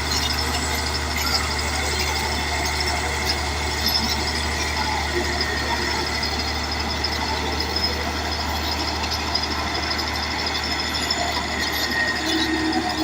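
Diesel engine of a Caterpillar D8 bulldozer running steadily, a deep even drone with rough machine noise over it.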